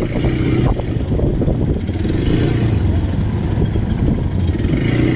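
ATV engine running at a steady pitch while riding.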